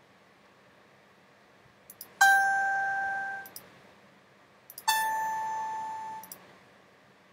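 Two synthesized piano notes played by the Plern Piano web app, each struck once and dying away over about a second. The first comes about two seconds in and a slightly higher one about five seconds in, with faint clicks just before and after each.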